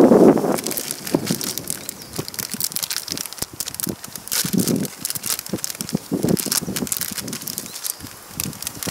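A ramen packet crinkling and crackling as it is handled and torn open by hand, in many quick irregular crackles. A gust of wind hits the microphone at the very start.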